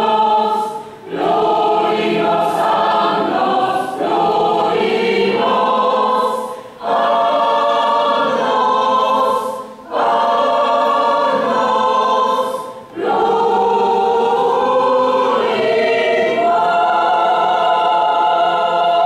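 Choir singing a church hymn in long sung phrases, with short breaks between them.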